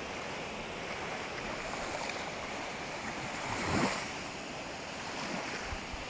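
Ocean surf washing onto a beach: a steady hiss of water, with one wave breaking louder about three and a half seconds in.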